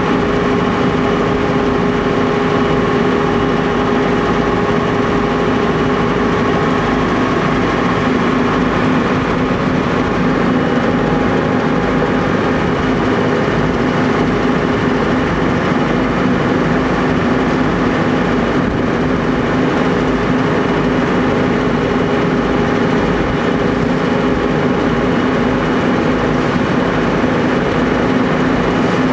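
Tour boat's engine running at steady cruising speed: a loud, even drone with a low hum held throughout.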